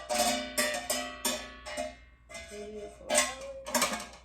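Metal parts of a portable barbecue grill clanking together as its legs are fitted: a string of sharp, irregular metallic clanks, roughly two a second, each with a brief ring.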